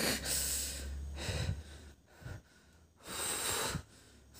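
A man breathing heavily close to the microphone: a long breath, a pause of about a second, then a shorter breath.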